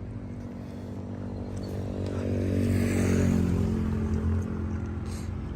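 A vehicle engine running steadily. It grows louder over the first three seconds, then eases back.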